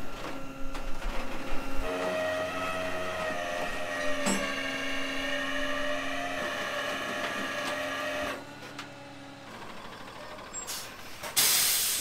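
Rollback tow truck's hydraulics whining steadily from about two seconds in, as the flatbed and winch load a pickup, then cutting off a little after eight seconds. A short loud hiss of air follows near the end.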